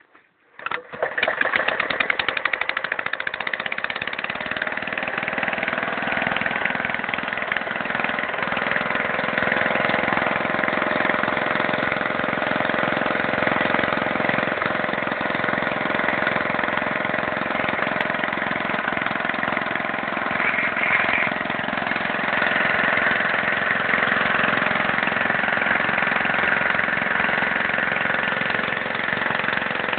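The Bernard W 110 bis single-cylinder petrol engine of a 1956 Staub PP 3B two-wheel tractor catches just under a second in and then runs steadily at idle.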